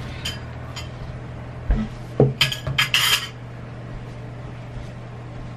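Plastic ice cream tubs and tableware being handled on a dining table: two light clicks, a thump just before two seconds in, then a quick cluster of knocks and clinks.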